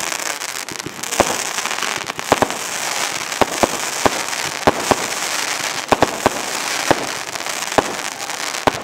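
Fireworks firing: a steady hiss broken by a quick, uneven run of sharp bangs, about two a second.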